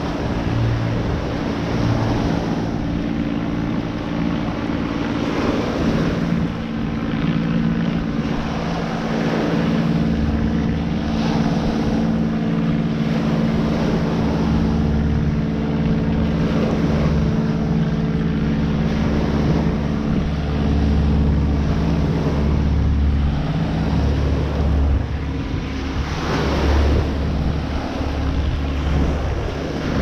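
Surf washing onto the beach in repeated swells, with wind buffeting the microphone that grows stronger about a third of the way in. Under it runs a steady engine drone at one unchanging pitch.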